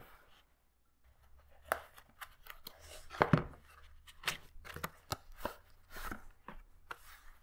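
Cardboard box opened by hand: flaps and tabs pulled apart with scattered cardboard clicks, crackles and scrapes, the loudest about three seconds in, then a fabric knife case sliding out of the box.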